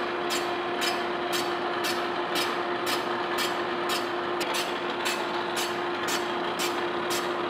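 Boring mill fly cutter facing a cast iron drill press table: the single cutting tool bites the iron about twice a second, once per turn, as a regular ticking over the steady hum of the machine's drive.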